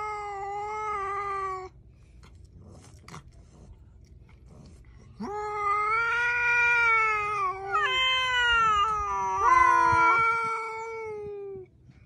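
Two tabby cats yowling in long, drawn-out, sing-song howls. One howl ends about a second and a half in. After a pause, a long howl of about six seconds starts around five seconds in; its pitch wavers and breaks, and a second cat's voice joins near its end.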